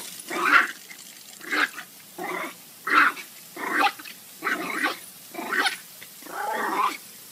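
A dog barking repeatedly, about nine short barks spaced under a second apart, the last one drawn out longer.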